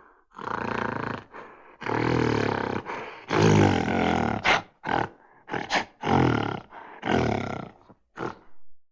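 A large animal roaring: a run of loud, deep calls, each lasting under a second, with shorter grunts between them.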